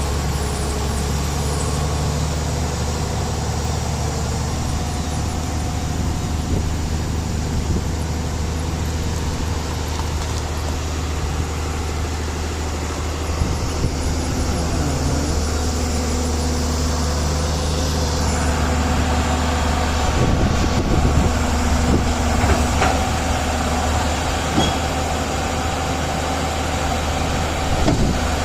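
Tracked excavator's diesel engine running steadily under load as the machine works itself down off a trailer, with the sound growing busier and a little louder from about two-thirds of the way through.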